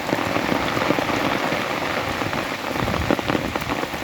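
Steady rain falling: an even hiss full of many small drop impacts.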